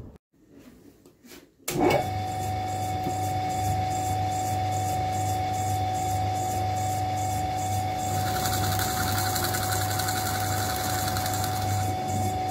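Pillar drill running, its motor coming in suddenly about two seconds in with a steady low hum and whine. From about eight seconds in, the bit bores into a small wooden block, adding a rasping hiss for about four seconds.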